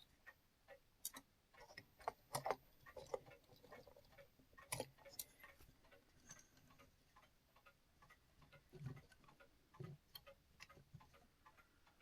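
Faint, irregular metallic clicks and taps of a Herschede clock movement's brass parts being handled as a spring barrel is slipped into place, with a few louder clicks in the first five seconds.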